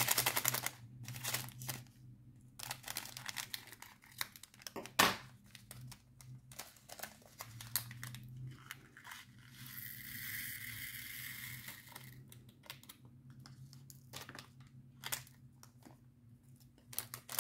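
Small plastic bag of diamond painting drills crinkling and rustling as it is opened and handled, with scattered small clicks and a few seconds of denser, continuous rustle in the middle.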